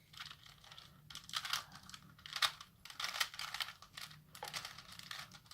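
Plastic layers of a 3×3 Rubik's cube clicking and clattering in irregular bursts as the faces are turned by hand.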